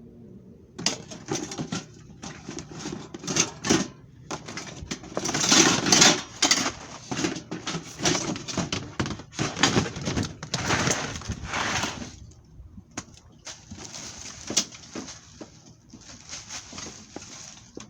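Rustling, crinkling and light knocking of items being handled and rummaged through, in irregular bursts with a short lull about two-thirds of the way through.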